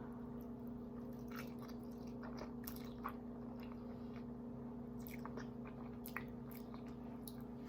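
Close-miked chewing of a mouthful of creamy Alfredo pasta and salmon: soft wet mouth clicks and smacks scattered through, over a steady low electrical hum.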